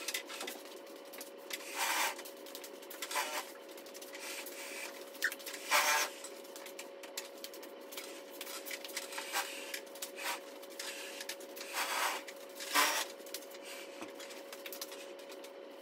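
Heavy metal table being dragged and shoved across a laminate floor: a series of short scraping rubs a few seconds apart, over a faint steady hum.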